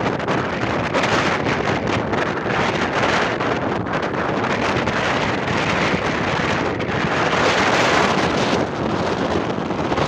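Strong wind buffeting the microphone: a dense, loud rush of noise that flutters without a break.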